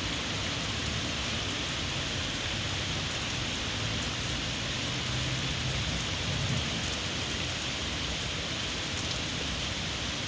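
Heavy rain falling steadily, with scattered sharp ticks of drops close by.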